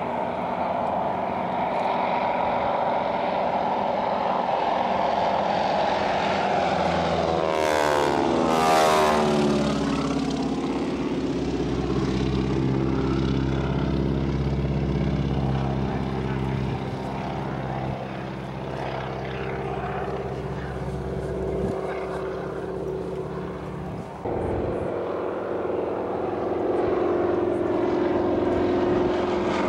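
Boeing Stearman biplanes' radial engines droning as they fly past. The pitch falls steeply about eight seconds in as they go by, and the engines then hold a steady lower drone.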